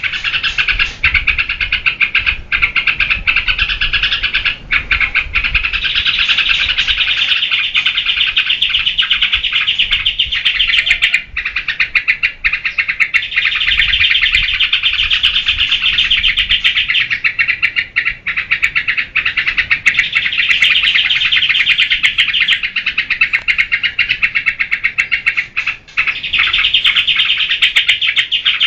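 Yellow-vented bulbul (trucukan) singing energetically: a dense, fast, almost unbroken run of bubbling, chattering notes, with only a few brief breaks.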